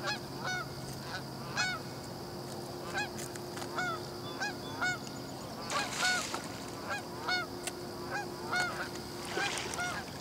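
Geese honking over and over, short calls that rise and fall in pitch, about two a second in a loose series. A faint steady hum runs underneath, with a brief rustle about six seconds in.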